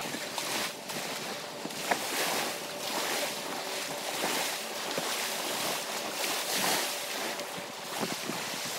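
Small surf washing up on a sandy shore, swelling and fading over and over, with wind on the microphone. A short sharp knock about two seconds in.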